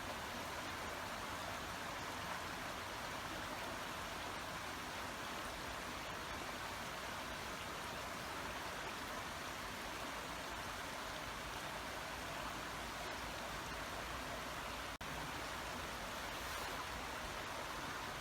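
Babbling brook: water running steadily, with a split-second dropout a few seconds before the end.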